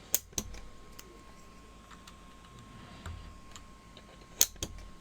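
Keycaps being pressed onto the switches of a mechanical keyboard: sharp plastic clicks, two just after the start, a few faint ticks in between and another close pair near the end.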